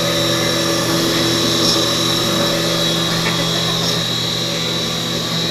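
CNC machine running with its chuck spinning: a steady mechanical hum with a constant high-pitched whine.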